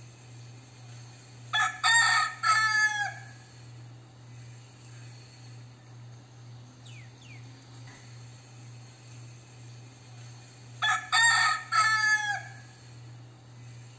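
Crossbreed gamecock rooster crowing twice, about nine seconds apart. Each crow is a few short, choppy notes followed by a longer note that falls away at the end.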